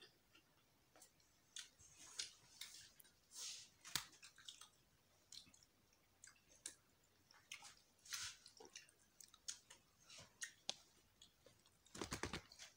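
Faint, scattered eating sounds: chewing and wet mouth smacks as roast chicken is pulled apart by hand and eaten, with a quick run of small clicks near the end.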